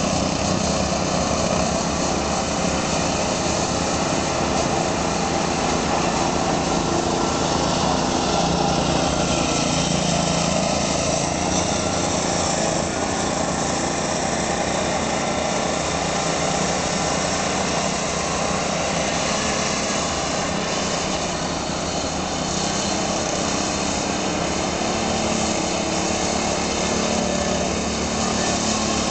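Small gasoline go-kart engines running steadily as the karts lap the track, a continuous engine buzz.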